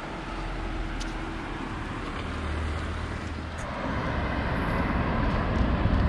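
Road traffic passing along a street: a steady rushing noise with a low rumble, growing louder near the end.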